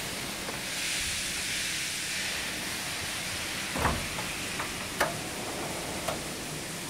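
Steel electrical cabinet door shut with a dull thump, followed by a few sharp metallic clicks as its latch handle is turned, over a steady hiss.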